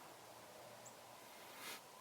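Near silence: a faint outdoor hiss, with a tiny high chirp a little under a second in and a brief soft rustle near the end.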